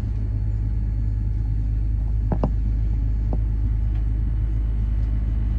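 Steady low rumble inside the cabin of a Boeing 787-9 airliner, with a few faint clicks about two and a half seconds in.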